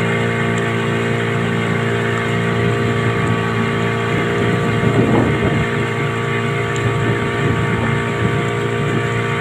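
Motorboat engine running steadily with a constant hum, over the rush of water and wind, with a brief louder rush about five seconds in.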